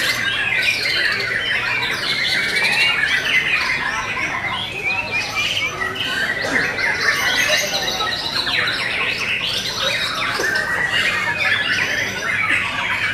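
Several caged white-rumped shamas singing at once, a dense overlapping mix of loud whistles, trills and chattering phrases with no break.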